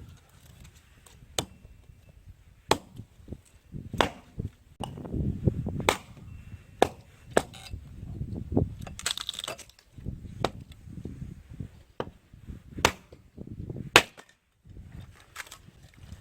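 Firewood being chopped: about a dozen sharp wooden knocks and cracks at irregular intervals, with low rumbling and handling noise between them.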